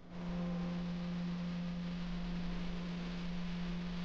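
A steady low hum, one unchanging tone, over an even hiss.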